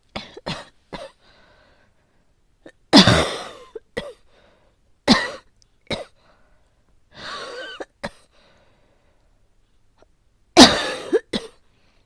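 A person's asthmatic coughing fit: harsh coughs in clusters of two and three, the loudest about three seconds in and again near the end, with a long drawn-in breath about seven seconds in.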